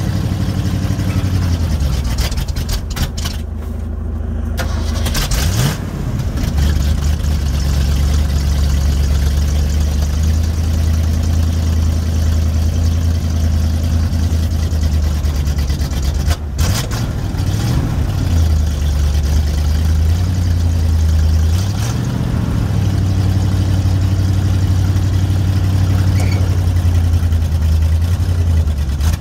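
1977 Ford F350's V8 gas engine running, its speed falling back about a second in, picking up again around six seconds, then dipping and rising again twice, near the middle and about three quarters through.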